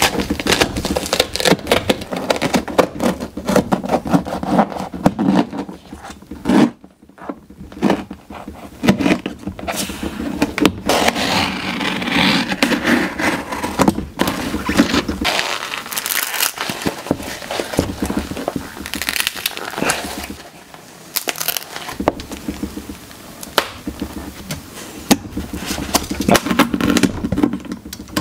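Snips cutting apart a Nike LeBron 20 basketball shoe: irregular clicking cuts through the knit upper and padding, with crinkling and tearing of the fabric, pausing briefly a few times.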